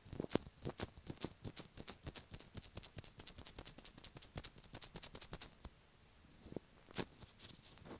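Rapid, close-up tapping on an earphone microphone, many light taps a second. The tapping stops almost six seconds in, and one louder tap comes about a second later.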